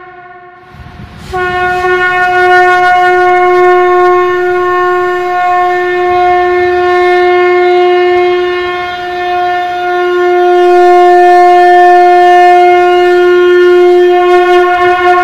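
Conch shell (shankh) being blown: the end of one blast fades out at the start, and after a short breath a new blast begins about a second in and is held as one long, steady note of about fourteen seconds.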